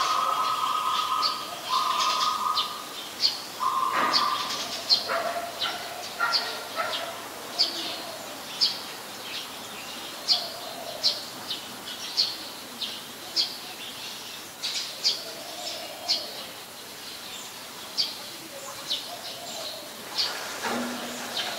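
Eurasian tree sparrows chirping: short, sharp, high chirps repeated about once or twice a second. Over roughly the first five seconds a steady mid-pitched tone sounds three times, each time for about a second.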